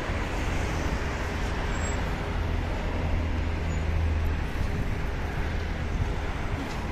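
Road traffic noise from cars passing on a multi-lane highway: a steady hiss of tyres and engines, with a low rumble that swells about three to four seconds in and then eases.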